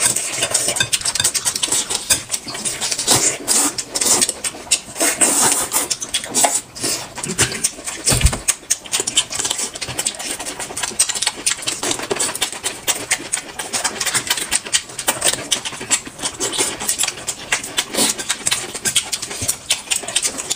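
Close-miked eating: wet chewing, smacking and slurping, as a stream of quick irregular crunches and smacks.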